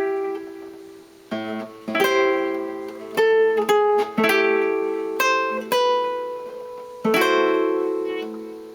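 Solo guitar played chord-melody style. A line of about eight plucked chords and notes steps down from the tonic chord, and the last chord rings out and slowly fades.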